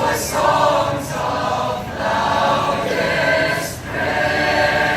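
A choir singing, several voices together, the words broken by consonants, settling into one long held chord near the end.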